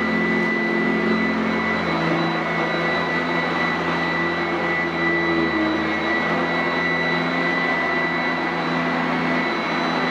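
Sanitaire SC899F commercial upright vacuum running steadily while vacuuming carpet, with a constant high motor whine. Its lower hum shifts slightly in pitch.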